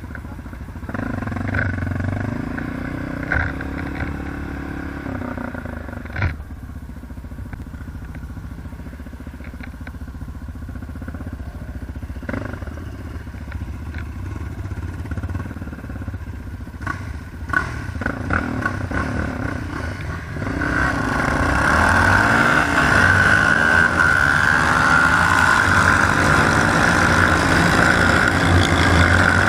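ATV (quad bike) engine running at low revs with a few knocks and clatters. About two-thirds of the way through it gets louder, the revs rising and falling as the quad is ridden.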